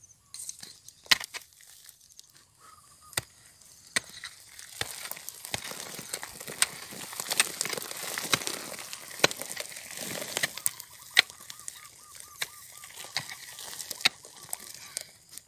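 A short-handled digging tool chopping into soil, with sharp strikes about once a second and loose dirt and grit scattering and pattering down between them, busiest in the middle stretch.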